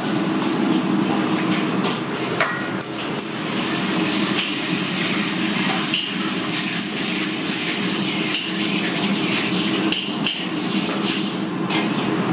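A steady low rumble with many sharp, irregular metallic clanks and knocks over it.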